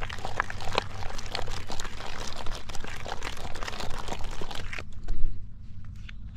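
Fingers swirling and pressing damp bran groundbait around a plastic basin: a dense, gritty scraping and squishing that stops about five seconds in, followed by a low thump.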